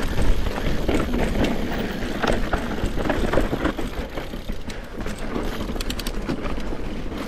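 Mountain bike descending a rough, rocky dirt trail: tyres crunching and the bike rattling and knocking over rocks, with a steady low wind rumble on the rider-mounted microphone. There is a brief run of fine clicking about six seconds in.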